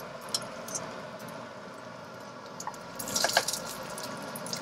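Millet patties sizzling in hot oil in a frying pan, a steady quiet frying hiss. A metal spoon clinks and scrapes in the steel pot a few times, most clearly about three seconds in, while scooping out more mixture.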